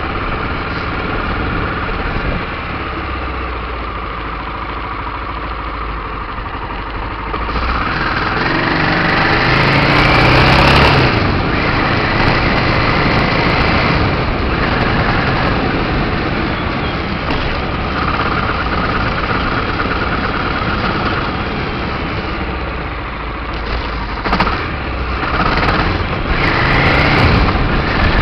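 Aprilia Pegaso 650 Cube's single-cylinder engine running as the motorcycle is ridden, with its pitch rising as it revs up about a third of the way in, then steady, and a second short rise near the end.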